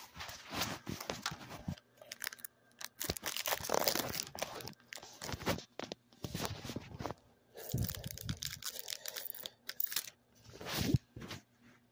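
Foil Yu-Gi-Oh booster pack wrapper being torn open and crinkled in irregular rustling bursts, with a couple of dull bumps about 8 and 11 seconds in.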